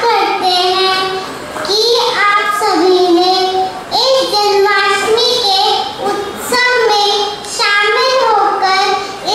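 A young child singing solo into a handheld microphone, unaccompanied, in long held phrases with short breaths between them.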